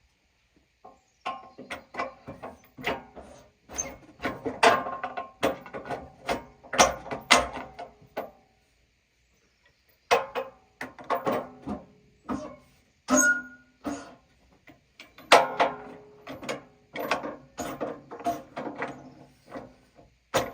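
Wood-Mizer sawmill's hydraulic log-handling gear working, with a string of irregular metal clanks and knocks, some ringing briefly, as the backstops are lowered and the log is handled. The clanks pause for about a second and a half midway, then start again.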